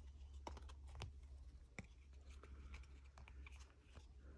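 Faint clicks and light slides of a stack of basketball trading cards being flipped through by hand, with a few sharp ticks about half a second, one second and nearly two seconds in, over a low steady hum.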